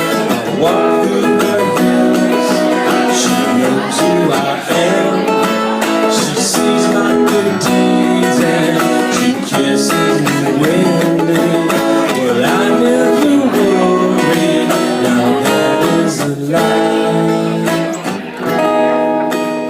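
Acoustic guitar being strummed and picked, playing a song.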